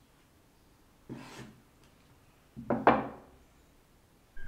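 Heavy cleaver knocking on a wooden cutting board as it cuts through soft rice-cake sticks: one stroke about a second in, then two quick strokes close together near three seconds.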